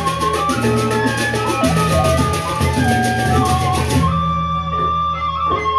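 A Sasak gendang beleq ensemble playing: large barrel drums beating under a held melodic line, with fast, even cymbal clashes that stop about four seconds in.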